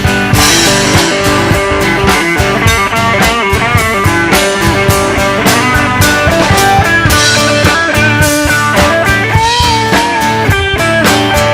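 Live rock band playing an instrumental break: a lead guitar bending notes over steady drums and bass.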